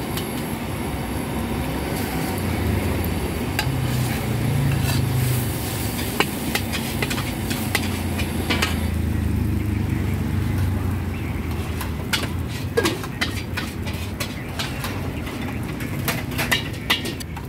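Metal spatula scraping and clanking against a wok while noodles and greens are stir-fried with a light sizzle, over a steady low rumble. The knocks of the spatula on the pan come thicker in the last few seconds.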